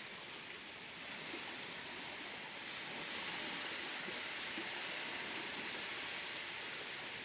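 Steady wash of ocean waves, swelling a little about three seconds in.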